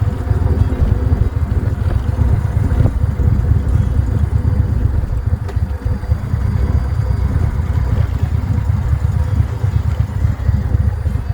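Indian Roadmaster Elite motorcycle's V-twin engine running, a steady low rumble.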